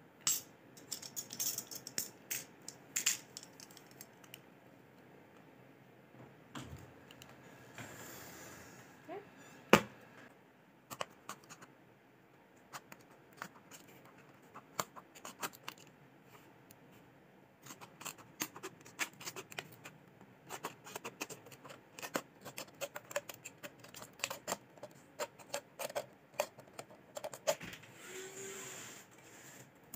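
Thin plastic soft-drink bottle being handled with scattered clicks and crinkles and one loud sharp knock about ten seconds in, then, from a little past halfway, a long run of quick sharp snips as scissors cut through the bottle's plastic.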